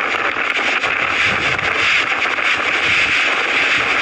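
Cyclone wind and heavy rain: a loud, steady rushing noise with gusty low rumbles underneath.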